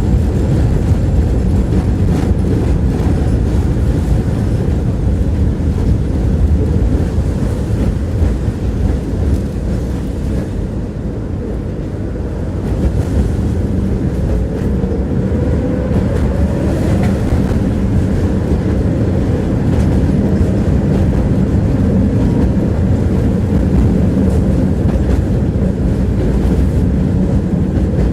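Tram running along its rails, heard from inside the passenger car: a steady low rumble of the wheels on the track. It eases off slightly about ten seconds in, and a faint rising whine follows soon after.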